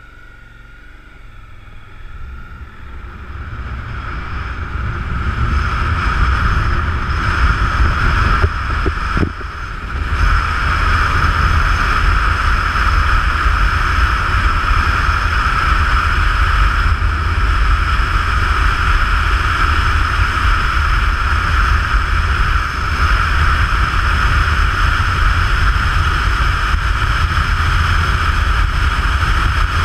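Motorcycle riding at road speed: wind rushing over the bike-mounted microphone with the engine running underneath. The sound fades in over the first few seconds, then holds steady, dipping briefly about ten seconds in.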